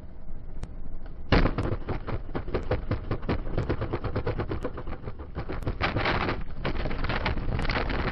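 Truck tyre blowout: a sharp bang about a second in, followed by rapid, irregular clattering over steady road rumble.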